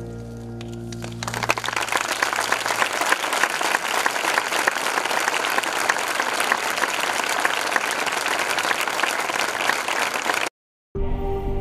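The last held chord of the song fades out, and about a second in an audience breaks into sustained applause. Near the end the applause cuts off abruptly and new music starts.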